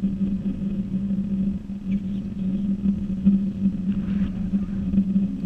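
Hexacopter's electric motors and propellers humming steadily at an even pitch.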